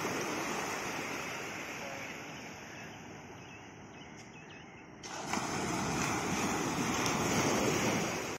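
Small waves breaking and washing up a sandy beach in a steady hiss of surf. The surf fades lower over the first five seconds, then jumps suddenly louder about five seconds in.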